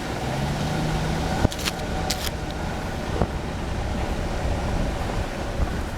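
Truck driving slowly over a bumpy dirt trail: a steady low rumble of engine and tyres, with a few sharp knocks or rattles about one and a half to two seconds in.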